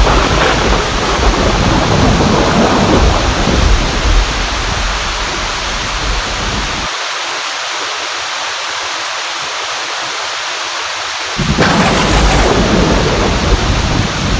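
Thunderstorm: heavy rain hissing steadily while thunder rumbles deep. The rumble drops away abruptly midway, leaving the rain alone. A sharp thunderclap cracks late on and rumbles on after it.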